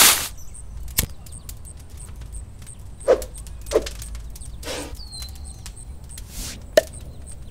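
Sound effects for an animated logo: a handful of short pops spread out, two whooshes in the second half and a brief falling whistle, over a faint even ticking.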